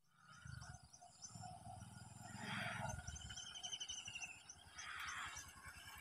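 Faint birdsong: small birds chirping again and again with high, short notes, and a warbling trill in the middle, over a low rumble.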